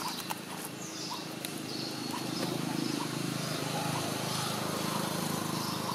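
Outdoor background sound: a steady low hum that swells about two seconds in, with short bird chirps repeating about once a second and a few clicks at the start.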